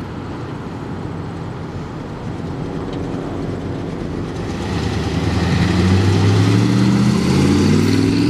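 A 1969 Dodge Charger R/T's 440 big-block V8 running through its new dual exhaust as the car pulls out and drives past, growing louder about halfway through and rising in pitch near the end as it accelerates away.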